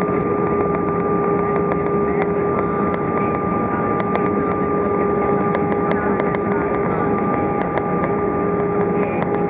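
Airbus A320 cabin noise as the airliner rolls along the runway after landing: a steady engine hum with several held whining tones over the rumble of the ground roll, with scattered light rattling clicks.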